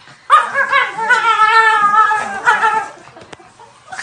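A dog giving one long, wavering whining howl of about two and a half seconds, starting a moment in.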